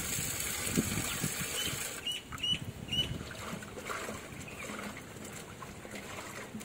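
Tap water running into a steel pot, cutting off about two seconds in, then light splashing and sloshing as tomatoes are washed by hand in the water in the pot. A few short high chirps sound around the time the water stops.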